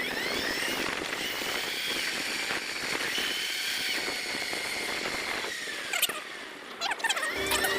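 Upgraded electric motor of a Razor MX650 pit bike (5000 W, 72 V) whining under way, its pitch rising at the start and holding steady, then easing off briefly near the end before climbing again, over a steady crackly noise.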